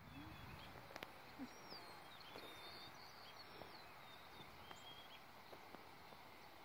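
Near silence: faint open-field ambience with distant birds chirping and whistling, and a couple of faint clicks about a second in.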